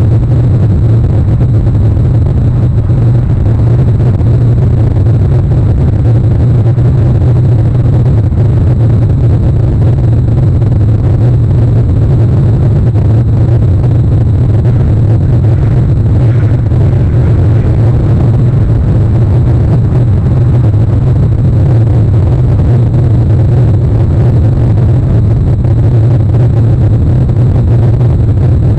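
Loud, steady low rumble of wind buffeting an outdoor camera microphone in rainy, stormy weather.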